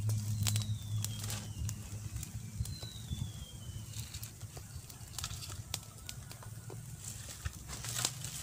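A small, freshly lit open fire of dry sticks and palm fronds crackling, with irregular sharp snaps and pops. A steady low hum runs under it for the first couple of seconds.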